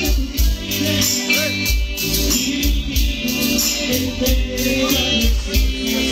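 A live band playing loud dance music, with a steady low drum beat about twice a second and a rattling shaker on the beat.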